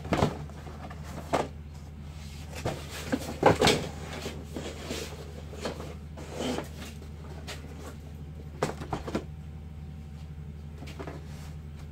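Irregular knocks, scrapes and rustles of cardboard and packing material being handled, the loudest cluster a few seconds in, over a steady low hum.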